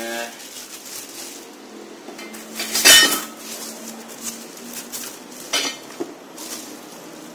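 Packaging being handled on a tile floor: a plastic-bagged pump and a styrofoam packing insert rustled and knocked as they are taken out of the box, with a loud clatter about three seconds in and a smaller knock later.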